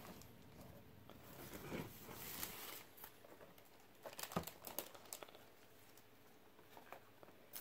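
Faint crinkling of a plastic shopping bag, with a few light knocks as boxed vinyl figures are handled and set down, about four seconds in.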